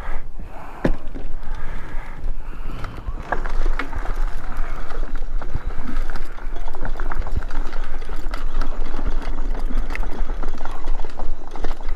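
Electric mobility scooter running along a dirt and gravel path, its tyres crackling over dry leaves and grit, with many small clicks over a steady low rumble.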